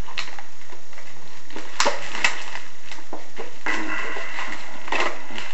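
Packaging on a DVD box set being cut open with a knife and pulled apart: two sharp clicks about two seconds in, then short bursts of rustling packaging.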